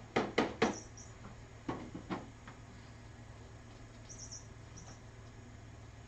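Light knocks and taps from cats moving and playing in a room: three quick taps in the first second, then two softer ones about two seconds in, with a few faint high squeaks, over a steady low hum.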